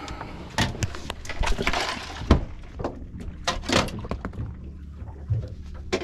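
Handling noises: a string of irregular knocks, thumps and rustles as a freshly caught Spanish mackerel is put into an open ice cooler on the boat, over a low steady hum.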